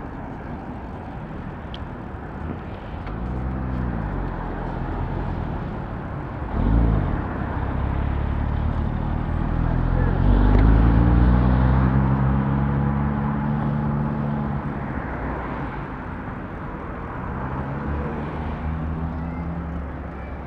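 City road traffic heard from a bicycle: engines of nearby cars running and pulling away, their pitch rising and falling several times over a steady low rumble. The loudest engine comes about ten seconds in and holds a steady note for a few seconds.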